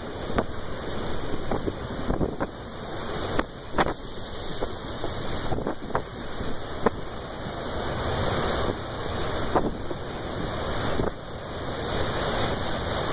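Heavy nor'easter surf breaking and strong wind buffeting the microphone: a dense rushing noise that swells and eases, with a few short sharp pops.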